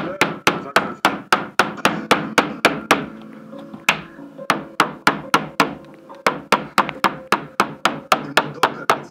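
Hammer tapping a loose glazing bead back into a PVC window frame: quick, evenly spaced sharp knocks, about three or four a second, with a short pause about three seconds in before the tapping resumes.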